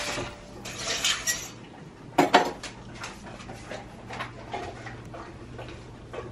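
Tap water running into a kitchen sink, stopping about a quarter second in, then a stainless steel dog bowl clanking and knocking against the sink and counter: two loud clanks a little past two seconds, followed by lighter taps and clicks.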